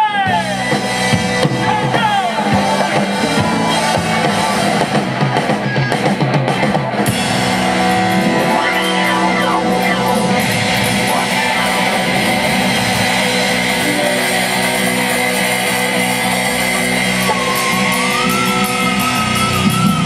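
Live rock band playing an instrumental passage with electric guitars, bass guitar and drum kit. The sound fills out about seven seconds in, and a wavering lead line comes in near the end.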